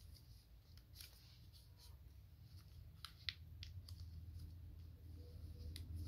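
Faint rustling and a few soft ticks of one-sided origami paper being folded and creased by hand, the clearest tick about three seconds in.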